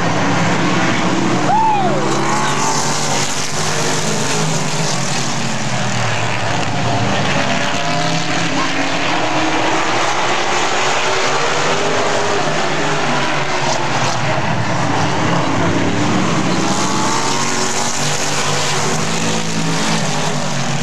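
Super late model stock cars racing around an oval, their V8 engines running hard in a steady din. The engine pitch rises and falls in slow sweeps as the cars accelerate down the straights and lift for the turns.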